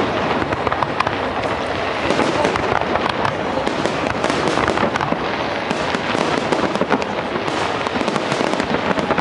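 Fireworks display going off continuously: a dense crackle of many rapid small bangs and pops with no pause.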